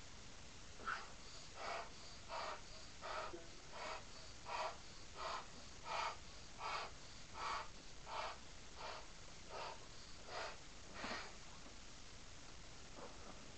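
A large latex balloon being inflated: a regular series of short whooshes of air, about fourteen in ten seconds, that stop a couple of seconds before the end.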